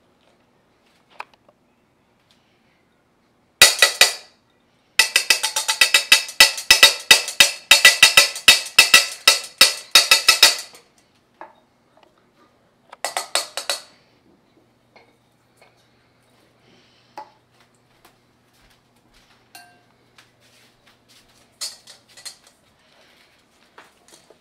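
Utensil clinking rapidly against a stainless-steel mixing bowl as eggs are beaten with sugar and cornstarch, about six or seven ringing strikes a second. A short burst about four seconds in, a long run of about six seconds, and a brief burst near the middle, then only a few light taps.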